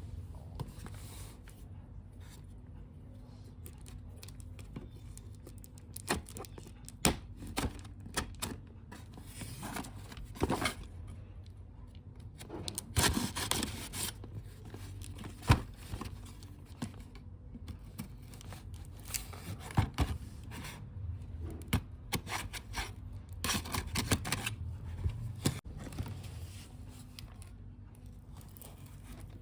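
Hands unboxing and handling small plastic toys and their packaging: irregular clicks, taps and short bursts of rustling and tearing, with a faint steady hum beneath.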